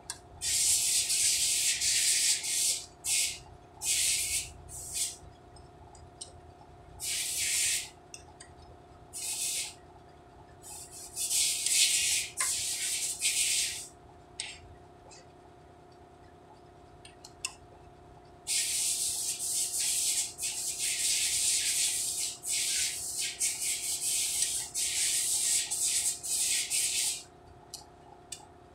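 Aerosol spray-paint can spraying in repeated hissing bursts, from short puffs to a long spray of several seconds, painting the truck air compressor.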